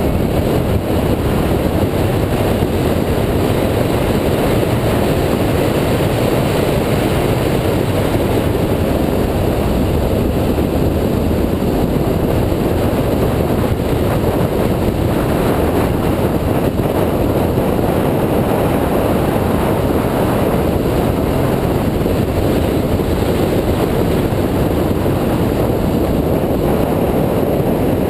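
Engine and wind-rushing noise of a 2004 Mini Cooper S at speed on a race track. Its engine is a supercharged 1.6-litre four-cylinder. The sound is heard through a hood-mounted camera, where wind on the microphone blurs it into a steady rumble with no clear shifts.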